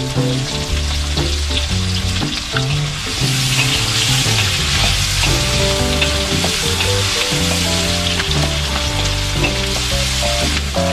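Food sizzling in a hot wok while it is stirred with a wooden spatula, the sizzle swelling about three seconds in and stopping just before the end. Background music with a steady bass line plays throughout.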